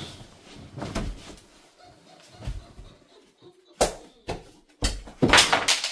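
Three sharp bangs about half a second apart, then a louder rough clatter near the end.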